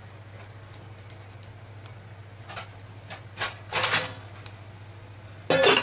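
A few brief rustling handling noises, then a short, louder metallic clatter near the end as a steel plate is set over a glass bowl as a lid; a low steady hum runs underneath.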